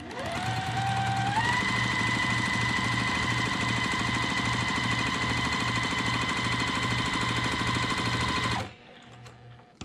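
Electric sewing machine stitching a seam through two layers of cotton fabric. The motor whine rises as it gets up to speed in the first second or so, then runs steady with the needle's rapid, even beat, and stops suddenly near the end.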